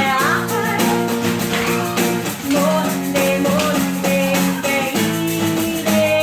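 Live acoustic music: an acoustic guitar strumming sustained chords in a steady rhythm.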